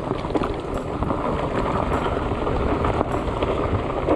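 Fat bike rolling fast over a dirt forest trail: steady tyre rumble and wind on the microphone, with scattered small knocks and rattles from the bike.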